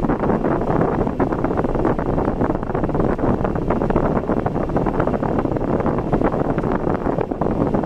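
Steady road and wind noise of a car driving, with a rough, crackling buffeting.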